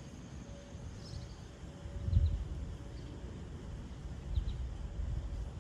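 Outdoor ambience: wind rumbling on the microphone, with two stronger gusts, and a few faint short bird chirps.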